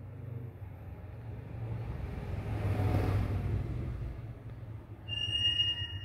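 A passing vehicle: a low rumble and rushing noise swell to a peak about halfway through, then fade. Near the end a short, steady, high-pitched tone sounds for about a second.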